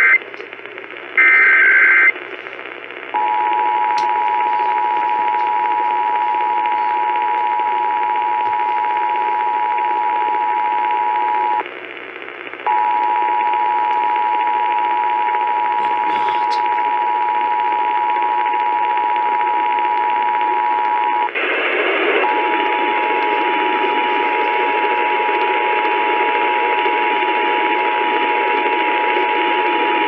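Emergency Alert System test received on an AM radio over static. The last bursts of the digital SAME header, a short buzzy data screech, come at the start, followed after a second by the steady two-tone attention signal (853 and 960 Hz). The attention signal cuts out briefly twice, and after the second break the static is louder.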